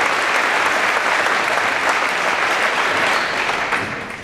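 Crowd applauding steadily, fading away near the end.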